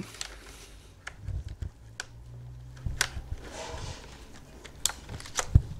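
Keycaps being pressed and snapped back onto a Razer BlackWidow Ultimate mechanical keyboard: a few separate sharp plastic clicks, with a low hum in the middle.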